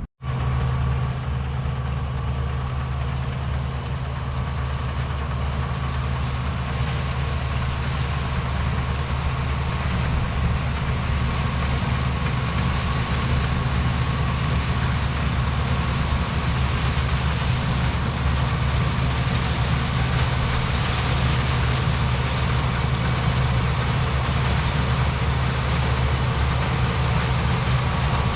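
A large engine running steadily at a constant speed, with a faint steady whine over the low drone, slowly growing a little louder.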